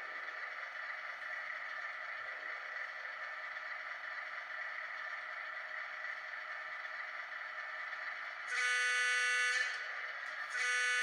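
Sound system of an Atlas SD9 model diesel locomotive playing a steady, thin engine idle with no bass. About two-thirds of the way in, its horn gives a blast of about a second. A second, longer horn blast begins near the end.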